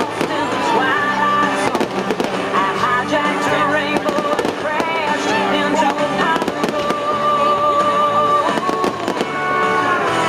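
Aerial fireworks bursting overhead in a rapid run of bangs and crackles, thickest in the first few seconds, with music playing loudly throughout.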